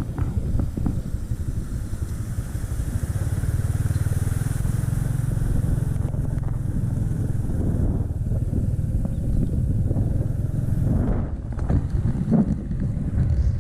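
Motorcycle engine running steadily while the bike is ridden, with a rougher, more uneven stretch near the end.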